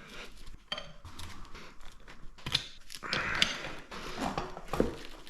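Tire levers clicking, knocking and scraping against a motorcycle wheel rim and tire rubber as a tight tire bead is worked over the rim by hand.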